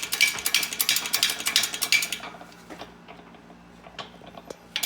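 A fast run of sharp metallic clicks, about six a second, like a ratcheting mechanism at work. It stops about two seconds in, and a few scattered clicks and taps follow.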